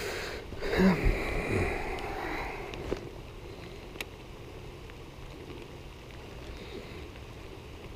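Steady hiss of light rain in the open air, with a brief low voice sound about a second in and a couple of faint clicks.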